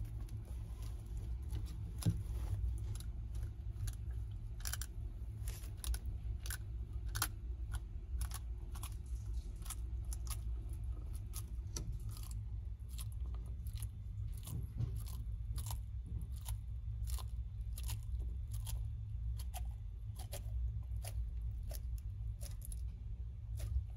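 Yellow-headed water monitor chewing and crunching quail eggs: sharp, irregular cracks of breaking shell, one or two a second, over a steady low hum.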